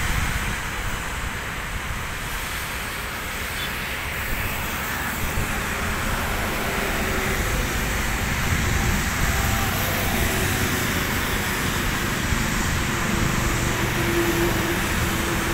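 Steady road traffic noise, a low rumble with a faint humming tone near the end.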